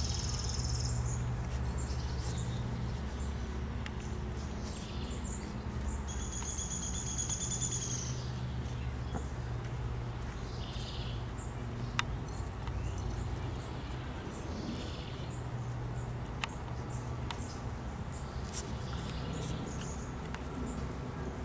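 Outdoor ambience: a steady low rumble with a few high, thin chirps and scattered sharp clicks.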